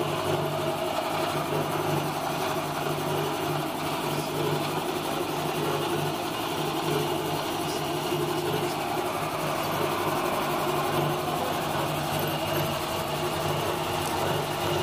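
Electric tank-mounted air compressor running steadily, with an even motor-and-pump hum, pumping air into its tank and building pressure.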